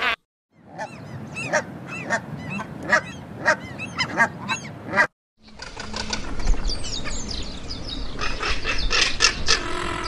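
Canada goose honking repeatedly in short calls for about four and a half seconds. After a brief gap, a crested caracara gives a dense, rapid run of calls.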